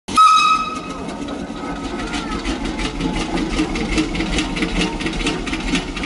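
Machinery running with a fast, even clatter over a low rumble, after a brief high tone in the first half-second.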